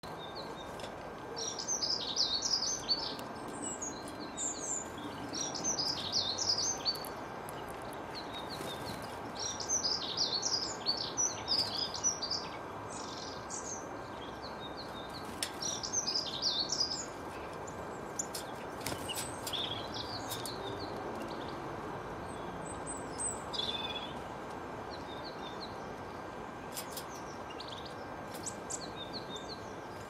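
Small garden songbirds singing and chirping in several bursts of quick high notes and trills, with quieter gaps between, the bursts thinning out in the second half. A steady background hiss with a faint constant hum runs underneath.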